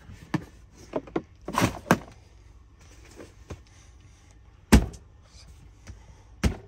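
Handling knocks: a hard plastic tool case and two cordless impact wrenches being moved and set down on a workbench, a string of clunks with the heaviest thump nearly five seconds in and another near the end.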